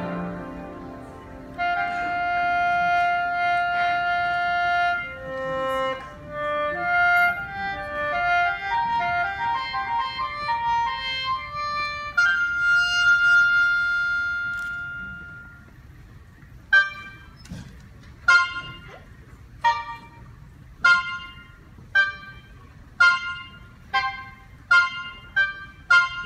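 High-pitched sheng (Chinese free-reed mouth organ) playing a solo passage after the orchestra's chord dies away: long held reedy notes and a run of notes stepping up and down. From about two-thirds through, it gives way to short, sharply struck chords about once a second, which come faster near the end.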